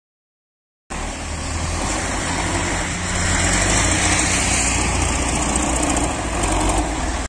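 Diesel engine of a wheeled tractor with a front snow blade running steadily while it pushes snow, with a steady hiss over it. The sound starts abruptly about a second in.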